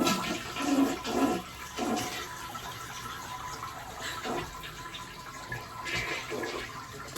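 A toilet flushing: water rushes steadily and eases off near the end. Brief voice sounds come in the first second or two.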